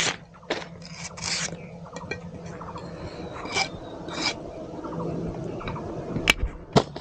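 Fresh green banana leaf stalk being handled and cut by hand: scattered short scraping and rasping strokes, then two sharp clicks near the end.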